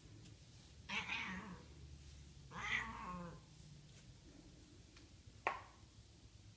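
Long-haired cat giving two drawn-out, complaining meows while being brushed, then one short sharp sound near the end.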